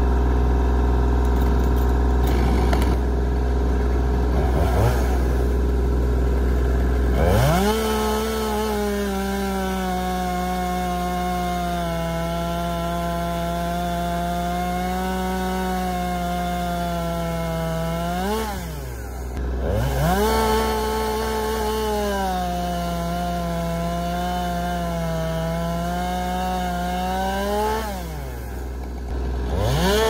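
Chainsaw cutting wood. A low steady rumble comes first; about seven seconds in the saw revs up to full throttle and runs through a long cut, its pitch sagging under load. Around eighteen seconds in it revs up and drops to idle, then runs through a second long cut, dropping off near the end and revving up again.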